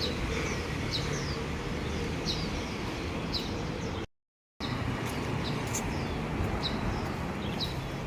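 Short, high, falling bird chirps repeated about once a second over a steady background hum of outdoor noise. The audio cuts out completely for about half a second around four seconds in.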